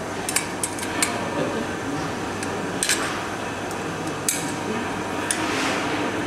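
Small steel spanners clinking as they are picked up from a tool roll and fitted to a bolt on an electric motor's end housing: a handful of sharp metallic clinks, several close together near the start, then single ones spaced a second or more apart, over a steady low background hum.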